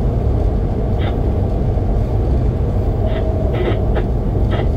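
Passenger train running along the track: a steady low rumble, with a few brief higher-pitched sounds about a second in and several more in the second half.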